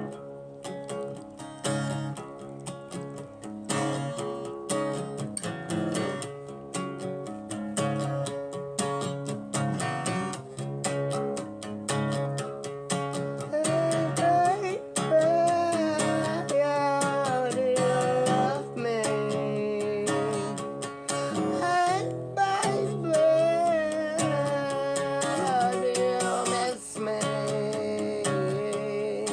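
Acoustic guitar strummed steadily. From about halfway, a wavering wordless sung melody joins over the chords.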